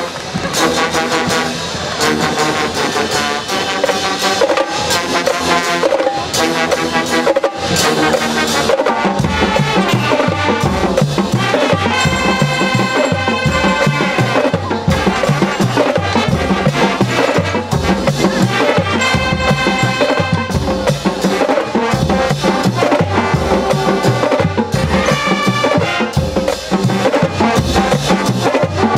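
High-school marching band playing a stand tune: brass with sousaphones over a drumline. The bass drums come in strongly about nine seconds in and keep a steady beat.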